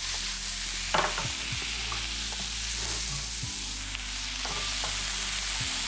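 Capsicum and garlic frying in a hot pan, a steady sizzle, with a few knocks of a utensil against the pan as it is stirred, the sharpest about a second in.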